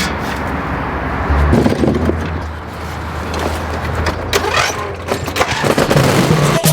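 Two-stroke chainsaw engine running steadily.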